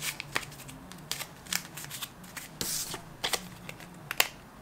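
Dollar bills being handled and stuffed into clear plastic envelopes. A series of short, crisp paper flicks and rustles, with a longer rustle about two and a half seconds in.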